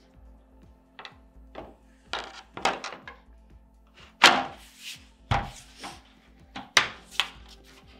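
The two halves of a Never Summer Proto Split splitboard being slid back together and clipped shut by hand: a string of sharp knocks and clicks of the board halves and their metal hooks and tip clip, the loudest about halfway through. Faint background music runs underneath.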